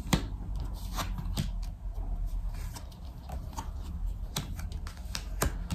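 Tarot cards being handled: scattered light card clicks and rustles at irregular intervals.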